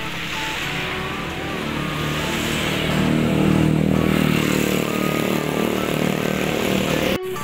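A motorcycle engine passing on the road, growing louder to a peak about halfway through and then easing off.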